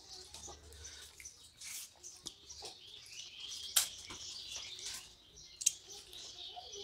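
Eating sounds: wet chewing and lip smacks as rice and fish head curry are eaten by hand, with fingers working the food on steel plates. Many short sharp clicks, the loudest a little under four seconds in and another near six.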